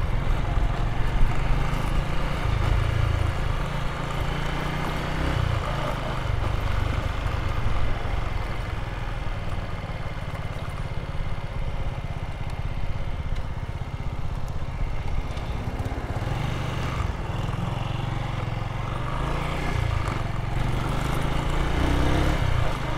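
Motorcycle engine running steadily while riding along, recorded from on board the bike.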